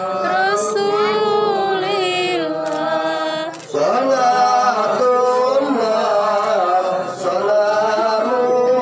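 A voice singing a slow, chant-like melody with a wavering vibrato. The singing drops out briefly a little under four seconds in, then carries on.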